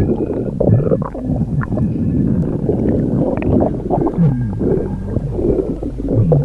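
Stomach growling: a loud, continuous low rumbling and gurgling, with several low groans that slide down in pitch.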